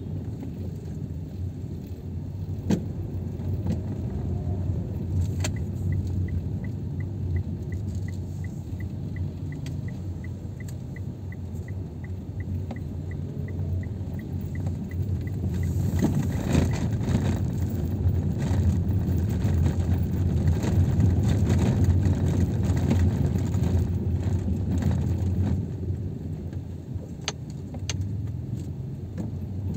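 Car cabin noise while driving slowly, a steady low engine and road rumble. A few seconds in, the turn signal ticks evenly, about three clicks a second, for some ten seconds. The road noise then grows louder as the car picks up speed.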